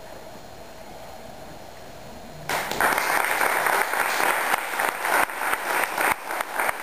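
A short hush, then audience applause breaks out suddenly about two and a half seconds in and carries on.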